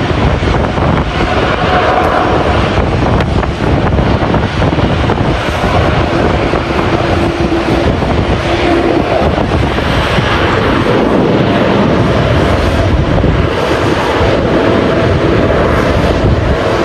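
Strong wind buffeting the microphone in a steady rumble, with a jet airliner's engines running underneath and faint steady engine tones coming and going.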